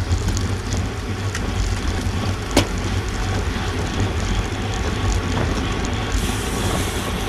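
Wind rushing over a GoPro camera's microphone along with tyre and road noise from a racing bicycle riding at speed in a tight pack, with scattered small clicks and one sharp click about two and a half seconds in.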